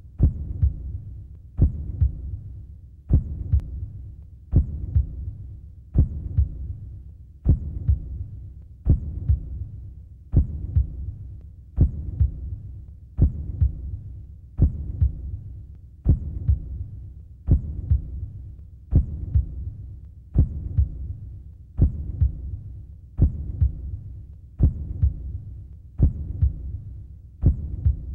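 Deep, booming bass hit repeated about every one and a half seconds in a slow, steady pulse, each hit sharp at the start and dying away into a low rumble, like a heartbeat.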